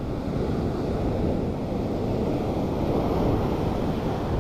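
Sea surf washing and breaking steadily, swelling a little midway, with wind rumbling on the microphone.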